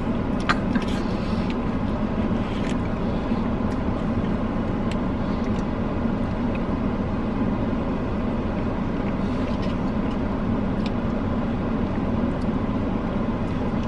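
A steady low hum and rumble with a strong low band that does not change, and a few light clicks in the first few seconds.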